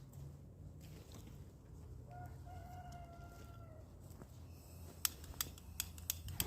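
A rooster crowing once, faintly: one long call of just under two seconds, about two seconds in. Several sharp clicks follow near the end.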